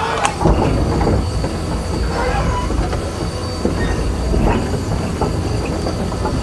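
Komatsu hydraulic excavator travelling on its steel crawler tracks, its diesel engine running steadily under irregular metallic squeaks and knocks from the track chains.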